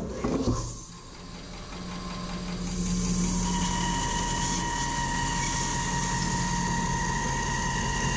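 Laguna 18BX bandsaw, fitted with Carter roller guides, cutting through a hardwood blank on a test cut. A couple of knocks at the start, then the cutting noise builds over about two seconds and settles into a steady pitched whine.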